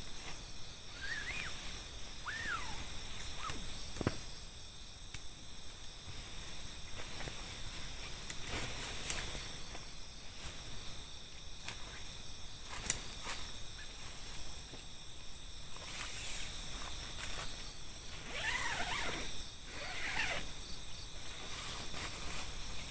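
A nylon dome tent's door zipper being pulled open, with rustling tent fabric and steps on grass, over a steady high chorus of night insects.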